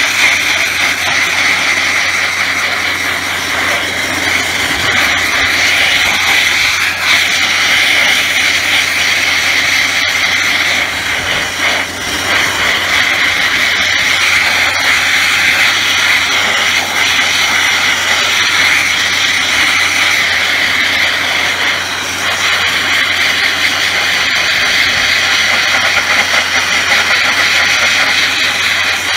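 DB500 Dustless Blaster wet abrasive blasting: a loud, steady hiss of water and 40/70 crushed glass jetting from the nozzle onto an HQ Holden guard, stripping the paint back to bare metal, with a couple of brief dips as the nozzle moves.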